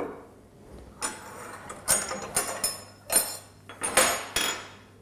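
Metal knives and forks clinking against each other and against china dinner plates, a run of sharp clinks and rattles from about a second in until near the end.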